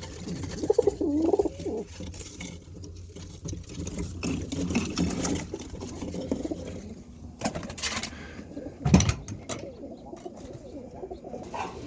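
Birmingham roller pigeons cooing, low wavering coos, with a few sharp clicks and one louder thump about nine seconds in.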